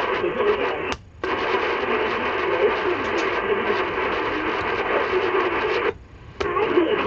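Weak shortwave AM broadcast on 9.680 MHz from a receiver's speaker: faint programme audio buried in static and hiss. The sound cuts out briefly twice, about a second in and again near six seconds, as the receiver is switched between antennas.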